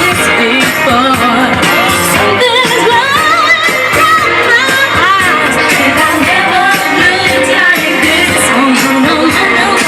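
A song with a lead singing voice, played loud and steady.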